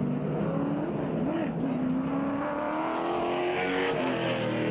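Several late model stock cars' engines running on the track, their pitches wavering and rising as the cars go past, one climbing steadily through the middle.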